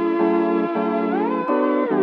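Background music: an instrumental track with a gliding synth lead over sustained chords.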